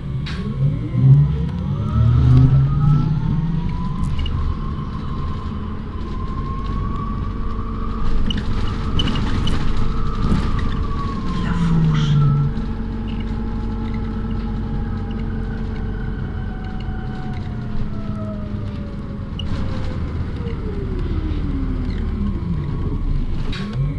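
City bus riding in motion: a low rumble with a whine from the drive that rises in pitch as the bus gathers speed, then falls as it slows, and again falls near the end.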